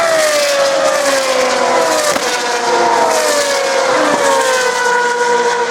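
Open-wheel racing car engines running at high revs, with the pitch gliding down in several overlapping sweeps, a new one about every two seconds.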